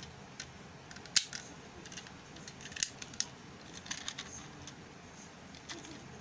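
A few sharp plastic clicks and light snaps, a plastic Ankh Lockseed toy being handled. The loudest click comes about a second in, with several softer ones after it.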